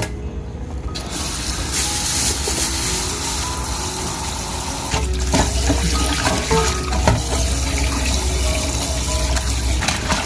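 Running water splashing, as from a kitchen tap filling or rinsing, starting about a second in, with a few light knocks around the middle and soft background music underneath.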